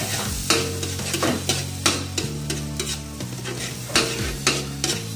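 Stir-frying in a metal wok: the food sizzles steadily in hot oil while a metal ladle scrapes and knocks against the wok again and again.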